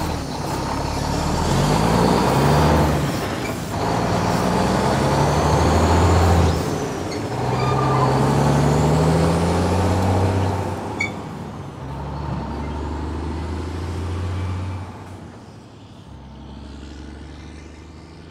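Semi truck pulling away, its engine pitch climbing and dropping back through three or four gear changes, then running steadier and fading as the truck moves off.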